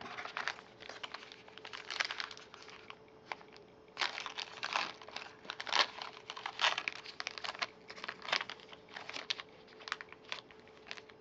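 Foil wax-pack wrapper of baseball cards crinkling and crackling as it is torn open, with irregular clicks as the cards are handled. A faint steady hum runs underneath.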